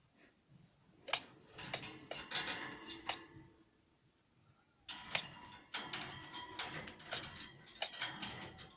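Pet cockatiel sneezing, a rapid run of small clicking sneezes in two bouts, one about a second in and one from about five seconds in. The sneezing comes from medicine that got into the bird's airways.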